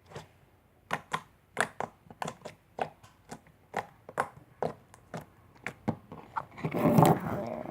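Large stretchy slime being squeezed and stretched by hand, giving a run of sharp popping clicks, about two or three a second, then a louder squishy rush about seven seconds in.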